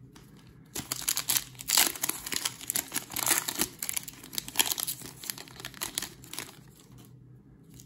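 Foil wrapper of a Panini Illusions trading-card pack being torn open and crinkled by hand. The dense crackling starts about a second in and dies away near the end.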